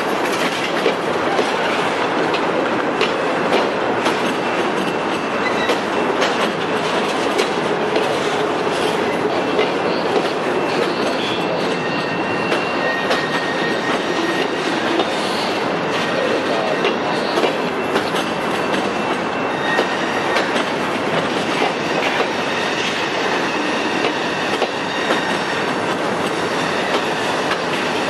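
Freight cars, empty bulkhead flatcars followed by covered hoppers, rolling slowly past close by. Their steel wheels clack over the rail joints, with thin wheel squeals now and then in the middle.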